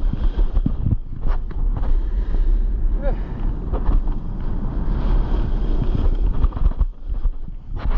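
Wind rushing and buffeting over a GoPro's microphone during a fast snowboard descent, with the board scraping and chattering over choppy snow.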